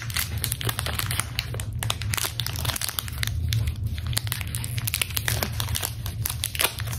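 Crinkly plastic wrapper of a small mochi being torn open and pulled apart by hand: irregular crackling and crinkling throughout, over a steady low hum.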